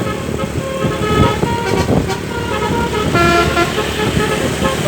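Basuri telolet horn on a vehicle playing a tune: a run of short, steady multi-tone horn notes that change pitch one after another, over a low rumble.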